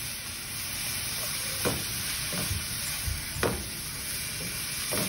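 Chopped onions and green chillies sizzling in hot oil in a pan while a wooden spatula stirs them, with a few sharp scrapes of the spatula against the pan.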